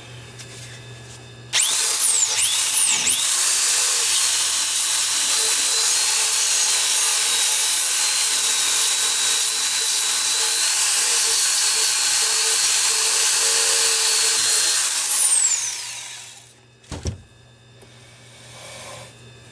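Makita electric belt file sander grinding down welds on sheet steel. It starts about a second and a half in and runs with a steady high whine, dipping briefly twice early on as it bites. Near the end it spins down, followed by a single knock.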